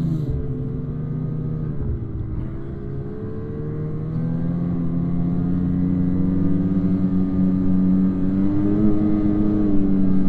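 Snowmobile engine running under throttle while riding through snow. Its pitch drops about two seconds in, then rises again about four seconds in and holds fairly steady, creeping slightly higher.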